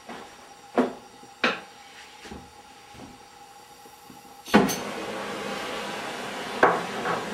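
Metal clanks and knocks in a workshop: two sharp ones about a second apart early on, a few fainter ones, then a loud clank about four and a half seconds in, after which a steady rushing noise starts, with two more knocks near the end.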